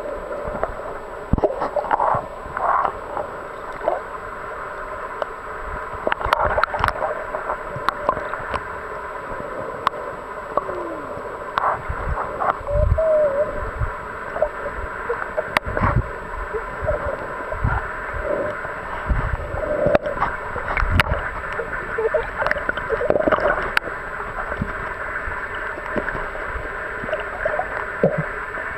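Muffled underwater sound from a camera submerged in shallow sea water: gurgling and sloshing, with scattered sharp clicks and low thumps and a faint steady high tone.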